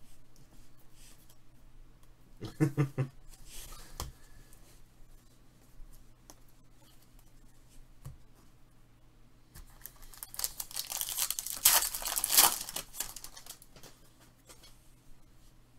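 Foil wrapper of a Prizm basketball card pack being torn open and crinkled, a dense crackly rustle that builds about ten seconds in and peaks around twelve seconds. Earlier there are a few soft handling knocks on the table.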